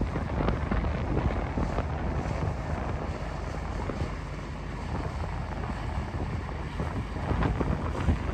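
Wind buffeting the microphone over the low rumble of motor boats running on the river.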